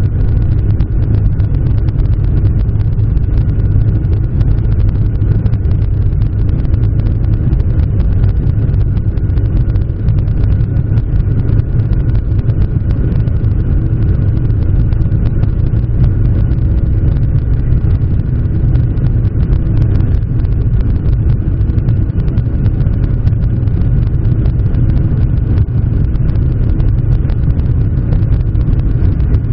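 Boeing 737-800's CFM56-7B jet engines heard from inside the cabin: a loud, steady deep rumble with a few steady whining tones held through the whole stretch.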